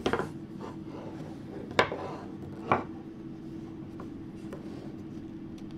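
Wooden straight knitting needles clicking against each other while stitches are knitted: a few sharp taps about a second apart, over a faint steady hum.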